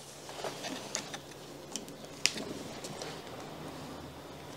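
Scattered light metallic clicks and taps as a socket is fitted onto a freshly repaired Facom ratchet and the ratchet is set onto a bolt, with the sharpest click a little over two seconds in.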